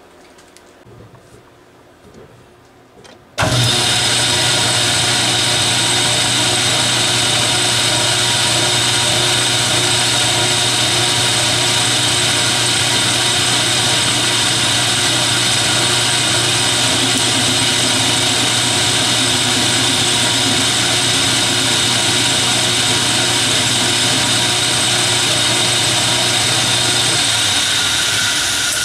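Metal lathe starting up about three seconds in and running steadily with a gear and motor whine while the tool turns down the end of a shaft, then switched off near the end and winding down.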